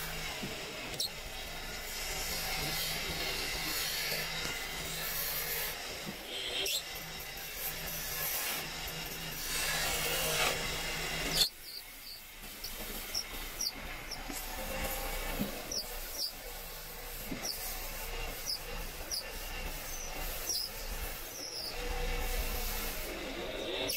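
Wood being worked by hand: steady rubbing and scraping, broken by a sudden click and drop about halfway through, after which short high chirps come about once a second over the scraping.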